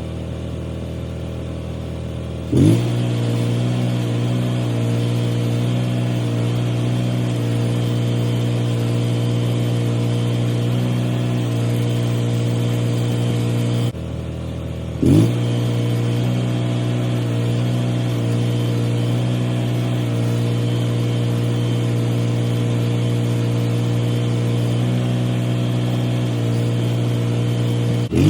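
An engine idles, then revs up quickly and runs steadily at a higher speed. This happens twice, about two and a half seconds in and again about fifteen seconds in.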